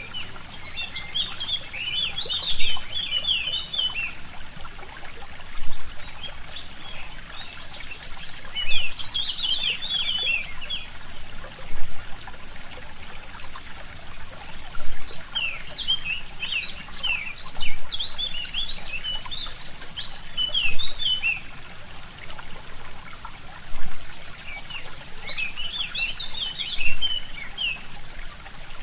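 Forest stream trickling steadily, with a songbird singing bursts of quick chirping phrases four times. A brief louder pulse from the water recurs evenly about every three seconds.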